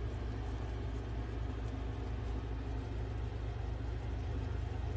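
A steady low rumble, with faint crunching of guinea pigs chewing fresh grass.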